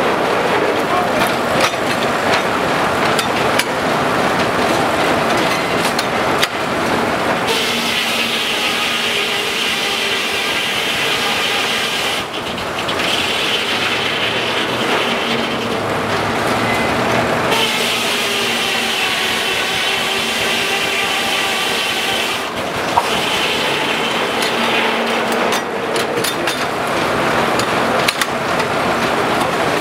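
Steam-powered sawmill running: clattering machinery, then a sustained whine in long stretches of about five seconds, each broken off briefly before it starts again.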